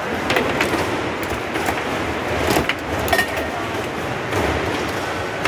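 Competition foosball table in play: the hard ball knocking against the plastic players and the table walls, and the rods clacking, as a run of sharp knocks of varied loudness. The loudest come about two and a half and three seconds in.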